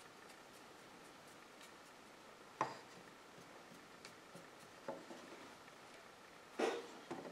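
A few light knocks and clicks from handling a small lead figure and paint brush on a wooden workbench, over quiet room tone; the loudest knock comes near the end.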